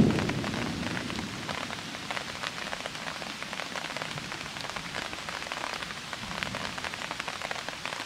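Steady rain pattering, many fine drops ticking as on a plastic sheet. A low rumble is loudest at the very start and fades within the first second.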